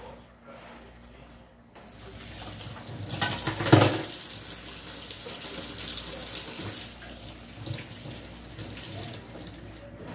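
Kitchen tap running into a stainless steel sink while a spoon is scrubbed with a sponge under the stream. The water comes on about two seconds in, is loudest for a moment near four seconds, and eases off toward the end.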